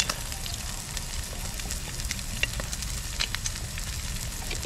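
Pork neck sizzling on a grill pan over a camp burner: a steady hiss with small scattered pops and crackles. A low thump near the end.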